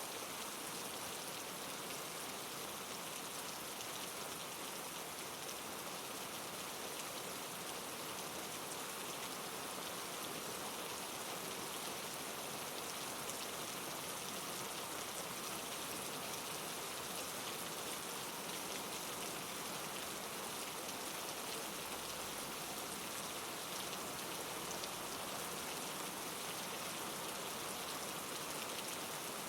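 Steady rain falling, an even hiss of raindrops with no change in level.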